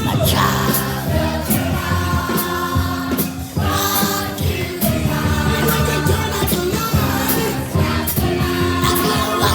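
A rock song playing: several voices singing held notes together over a band with drums and cymbals.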